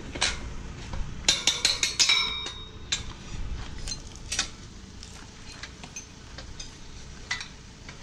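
Metal parts and tools being handled on a steel farm implement: a quick run of sharp metallic clinks with a brief ring about one to two and a half seconds in, then scattered lighter clicks.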